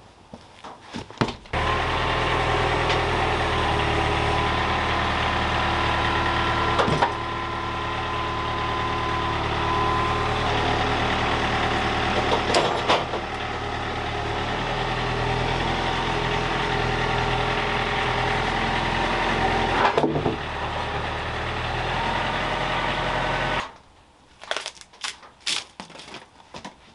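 Wood-Mizer portable bandsaw mill cutting western red cedar: the engine runs steadily while the band blade saws through the log. It starts suddenly about a second and a half in and cuts off abruptly near the end, with a few light clicks and knocks before and after.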